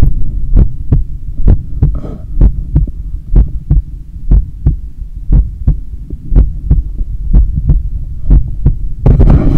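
A person's heartbeat picked up by a microphone pressed against the chest: regular dull thumps over a steady low rumble. Near the end a louder rubbing noise covers it.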